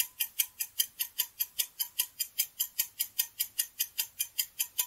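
Clock-tick sound effect of a quiz countdown timer: quick, even ticks, about five a second, counting down the time to answer.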